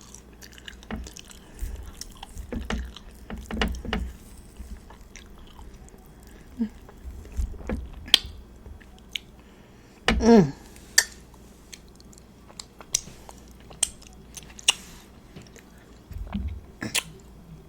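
Close-miked chewing and biting, with wet mouth clicks and smacks scattered throughout. A short sound of the voice comes about ten seconds in.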